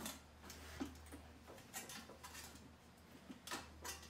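Faint, irregular metallic clicks and ticks as a sheet-metal sunflower head is handled in a bench vise and its petals are bent back, over a low steady hum.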